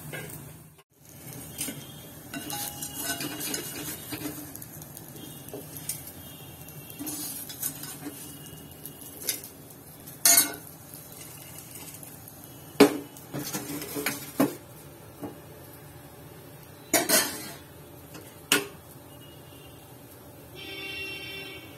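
Perforated steel ladle scraping and clinking against a kadai and a stainless steel plate as fried raw banana slices are scooped out and set on the plate, with several sharp clinks scattered through.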